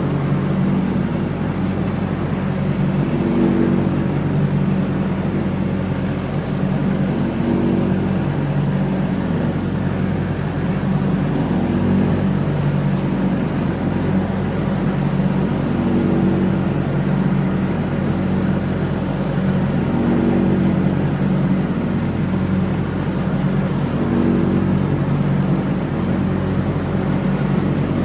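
A John Deere X304 lawn tractor's engine runs steadily while mowing, with a constant hum whose tone swells and eases about every four seconds.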